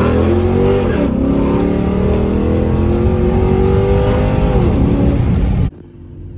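Chrysler 300 SRT8's Hemi V8 with aftermarket exhaust, accelerating hard. The engine note dips at a gear change about a second in, then climbs steadily in pitch. Near the end it cuts off sharply, leaving a lower, steady rumble.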